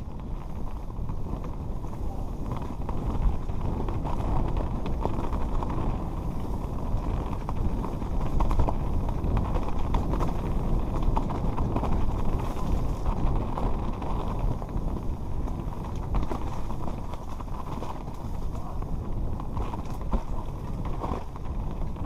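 Mountain bike descending a rocky dirt singletrack: a steady muffled rumble of tyres on loose stone and dirt, with scattered sharp knocks and rattles as the bike hits rocks, picked up by a helmet-mounted camera.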